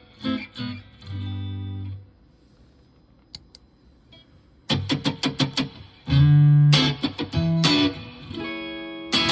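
Fender electric guitar played through a UAFX Dream '65 amp-emulator pedal. A few single notes and one held note come first, then a pause of about two and a half seconds with a couple of faint clicks. A quick run of picked notes follows, leading into louder held notes.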